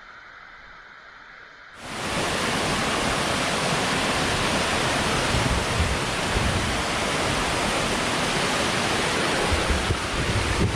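Rushing water, a loud steady rush that cuts in suddenly about two seconds in after a quieter start.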